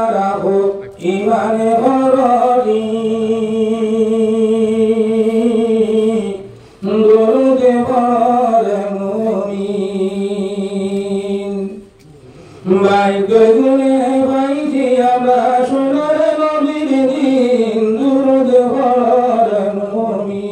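A man singing a Bengali Islamic gazal unaccompanied into a microphone: long, held, ornamented phrases, with three short breaths between them.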